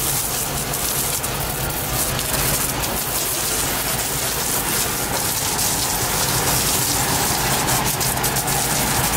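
Water spraying from a garden hose nozzle and spattering onto a sailboat's deck: a steady, rain-like splashing.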